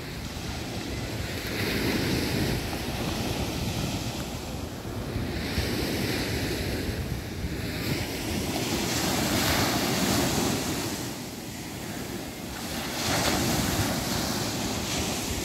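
Small sea waves breaking on the shore and washing up the sand, the surf swelling about every three to four seconds, with wind buffeting the microphone.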